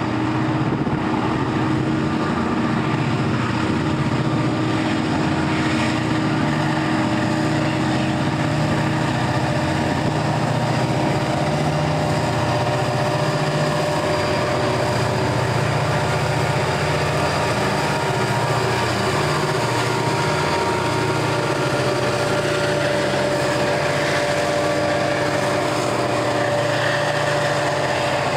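A pair of diesel helper locomotives passing, their engines running with a steady heavy drone as they shove at the rear of a heavy coal train.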